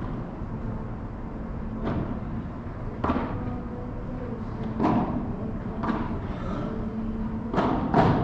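Padel ball struck back and forth by solid paddle rackets in a rally, a series of about six sharp knocks at uneven spacing that echo in the hall, the loudest pair close together near the end. A steady low hum runs underneath.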